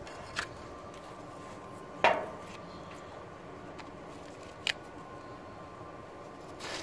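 Hard plastic and metal parts of a pop-up headlight motor clicking and knocking as its drive gear and shaft are worked out of the housing by hand: four short knocks, the loudest about two seconds in with a brief ring, over a faint steady hum.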